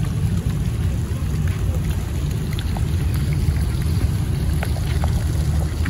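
A small floating pond fountain splashing steadily, under a steady low rumble.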